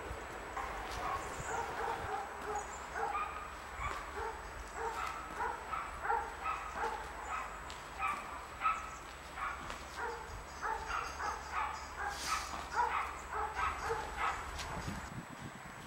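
A dog barking repeatedly in short yaps, several a second, over a low steady rumble.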